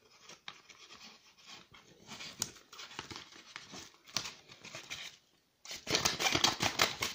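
Scissors snipping through a paper envelope, with quiet paper rustling between the cuts. About six seconds in, the paper starts crinkling much louder as it is handled.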